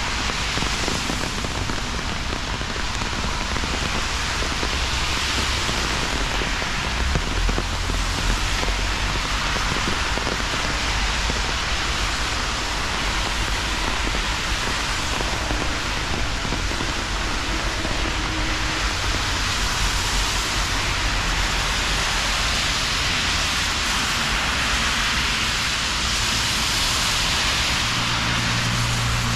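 Steady rain falling, an even hiss over a low rumble.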